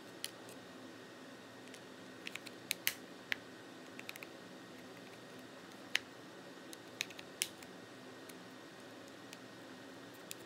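Irregular sharp clicks and ticks as a thin pry tool works into the seam between an iPod Classic's front plate and its metal back case to release the retaining clips. The clicks come about a dozen times, in clusters, the loudest about six seconds in, over a faint steady hiss.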